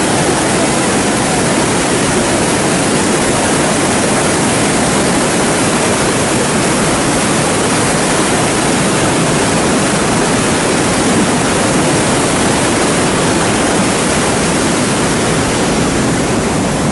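Floodwater rushing and churning through a concrete spillway as the full lake overflows, a loud, steady rush.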